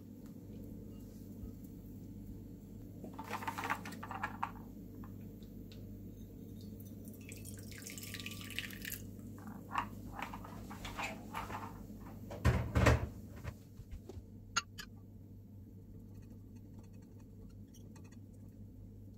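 Kitchen prep sounds over a steady low hum: scattered light clicks and short rustles or pours, with one louder thunk about 13 seconds in.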